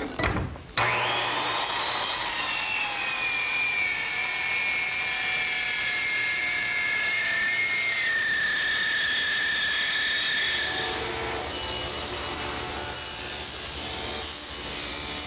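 Circular saw starting about a second in and cutting through 3/4-inch mahogany veneer plywood, its whine dropping slightly in pitch under load. Around eleven seconds in the sound changes to a table saw ripping the plywood.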